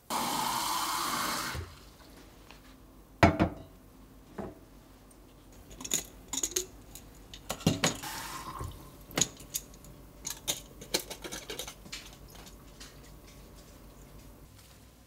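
Kitchen faucet running water into a container for about a second and a half, stopping suddenly. Then a glass bottle is knocked and clinks against the faucet and sink, with a short run of tap water into the bottle near the middle and scattered light glass clinks after.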